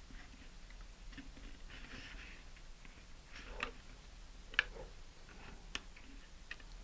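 Hobby knife blade lightly scoring thin vacuum-formed high-impact polystyrene: faint scratching with a few sharp ticks and clicks, the loudest a little past halfway.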